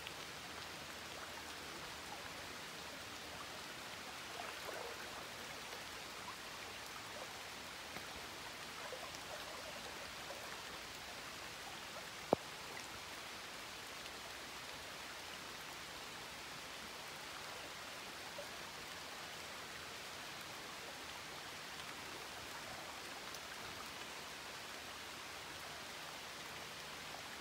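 Light rain falling on water and leaves: a steady soft hiss with scattered faint drop ticks, and one sharp click about twelve seconds in.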